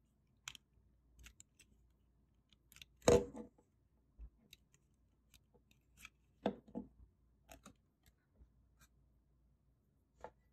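Lego plastic pieces clicking and knocking as hands press on and handle an assembled Lego police car, in scattered short clicks. The loudest cluster comes about three seconds in and a pair of knocks follows in the middle. A last tap near the end comes as loose rubber Lego tires are set down on the wooden tabletop.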